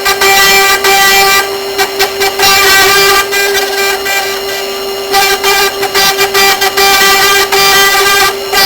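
CNC router spindle running at a steady high-pitched whine while carving, with brief dips in level and short bursts of cutting noise throughout.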